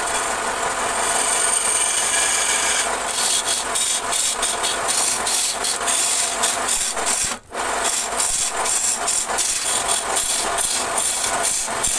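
Wooden vase blank spinning on a belt-driven wood lathe while a long-handled turning tool cuts into it: a steady rough scraping hiss with a rapid chatter of the tool on the wood. The sound drops out for a split second about seven seconds in.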